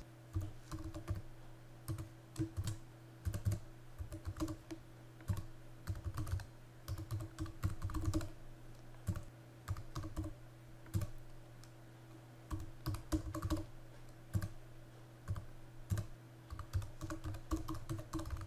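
Typing on a computer keyboard: irregular runs of keystrokes with short pauses between them, over a steady low hum.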